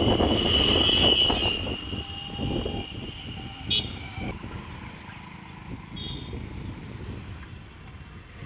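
Road traffic with motorcycles passing close by, their engine noise loudest in the first two seconds and then easing off. Vehicle horns sound over it: a long high-pitched horn tone at the start, then short toots about four and six seconds in.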